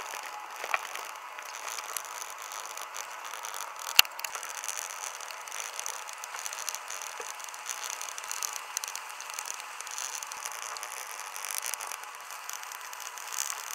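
Fine metal tweezers scraping and picking leftover adhesive off the glass back panel of a Samsung Galaxy S20, a steady scratchy rasp with a few small clicks and one sharp click about four seconds in.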